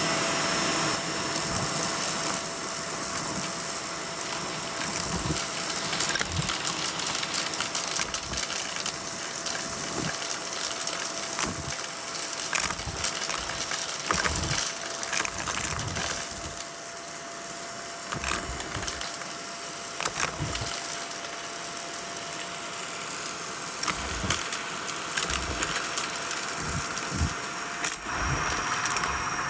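Vacuum cleaner running, with a steady whine over a strong rushing hiss and scattered low knocks and bumps as it is worked over the surface.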